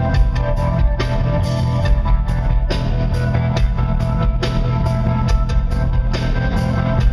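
Blues-rock band playing loud and live, heard from the audience: a drum kit beats steadily with cymbal crashes about once a second under electric guitar and keyboards, with a heavy, boomy low end.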